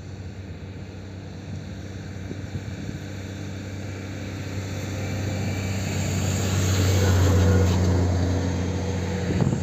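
Jet engines of a LATAM Airbus A320-family airliner rolling along the runway: a steady low rumble and hum that grows louder for about seven seconds as the jet nears and passes, then eases slightly.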